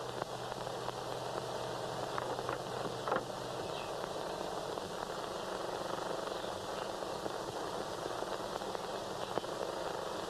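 Steady hiss of an old film soundtrack, with a low car engine hum that stops about three and a half seconds in, and a few faint clicks just before it stops.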